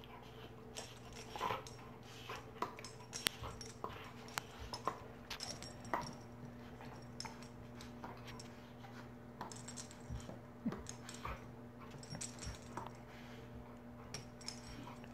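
A dog playing at a cat: scattered quick clicks, taps and light metallic jingling from the dog's collar tags as it lunges and mouths at the cat, over a steady low hum.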